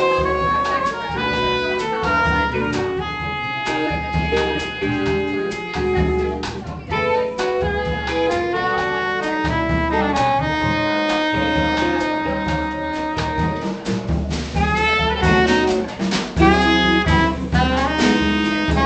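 Small jazz group playing: a soprano saxophone leads with fast runs and some long held notes, over upright bass and a drum kit.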